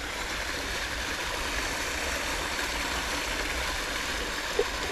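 Steady rushing of flowing water, an even hiss with no pitch to it.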